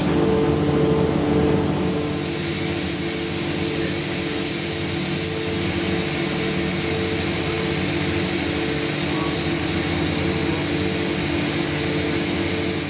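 Union Tool CEHS four-flute 6 mm carbide end mill slot-milling SCM440 alloy steel at 5000 rpm under flood coolant: a steady cutting hum with the hiss of the coolant spray, brighter for a few seconds about two seconds in. Only slight cutting noise and no squeal, the sign of stable, chatter-free cutting.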